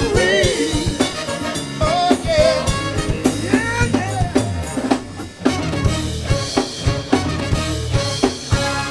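Live band playing soul-rock: drum kit hits over a steady bass, with wavering sung and horn melody lines.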